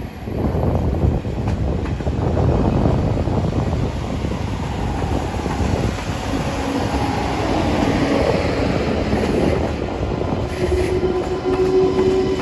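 A TGV Duplex and a TGV Lyria, coupled as one train, running past along the track: a steady rumble of steel wheels on the rails. A steady hum joins in near the end.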